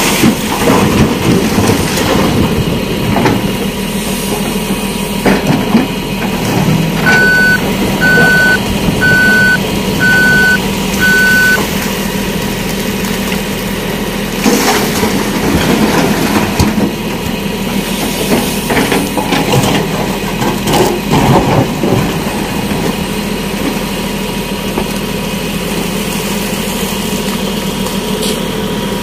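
JCB backhoe loader's diesel engine running steadily as the machine manoeuvres. About seven seconds in, a reversing alarm beeps five times, roughly once a second, and there are a few knocks later on.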